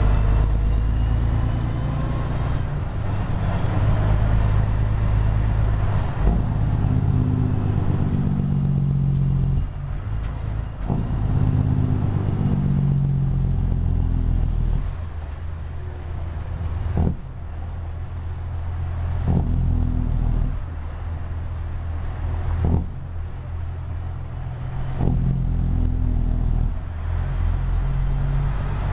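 Caterpillar C15 inline-six diesel of a Peterbilt 379, heard from inside the cab, pulling through the low gears of an 18-speed transmission in stop-and-go traffic. The engine note swells under load and drops away in turn, with a short sharp click at several of the gear changes.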